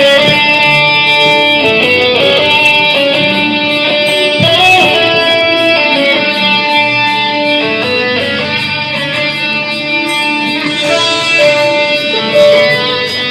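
Recorded backing track playing over the sound system, with guitar prominent over held chords that change every second or two.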